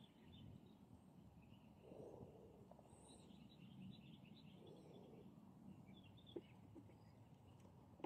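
Faint outdoor background with small birds chirping repeatedly in the distance over a low, even hum.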